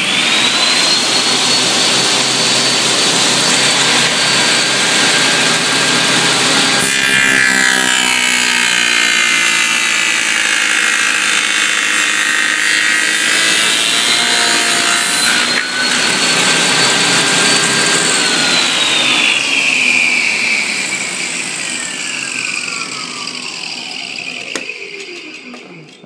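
Table saw with a stacked dado blade running at full speed with a steady high whine, cutting a groove through several clamped wooden boards partway through. Near the end the saw is switched off and the whine falls in pitch as the blade spins down.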